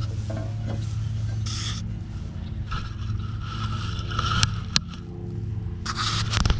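Scraping and rustling with a few sharp clicks and knocks as a lawn tractor's PTO belt is worked around its pulleys, over a steady low hum.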